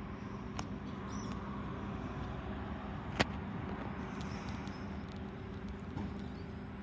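Distant NR class diesel-electric locomotives of an approaching freight train, a steady low drone with a constant hum. A single sharp click comes about three seconds in.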